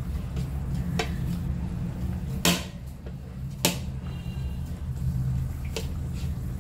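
Hands kneading crumbly chhena on a ceramic plate, with a few sharp clicks of metal bangles and a ring against the plate, the two loudest near the middle, over a steady low background hum.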